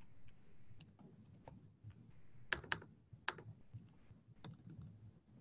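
Faint, irregular keystrokes on a computer keyboard, a scattering of separate clicks.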